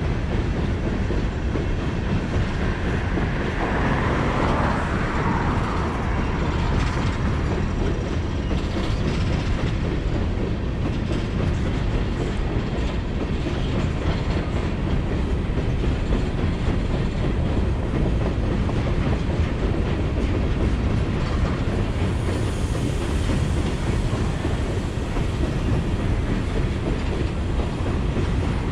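Freight train of open-top hopper cars rolling past, its steel wheels running on the rail in a steady, unbroken noise.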